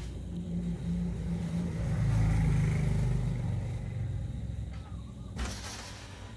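A motor vehicle driving past: a low engine hum that swells to its loudest about two to three seconds in and then fades away. A short hiss near the end.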